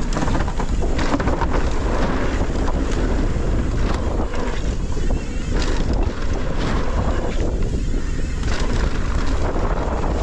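Wind buffeting the microphone on a mountain bike descending a dirt bike-park trail at speed. The tyres roll over the dirt, with frequent knocks and rattles from the bike throughout.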